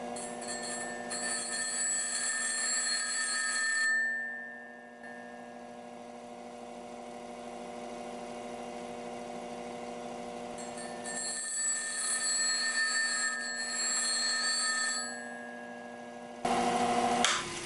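Bench grinder motor running with a steady hum while a steel drill bit is ground freehand against the side of a CBN wheel. The grinding contact comes twice, for a few seconds each, as a high ringing scrape.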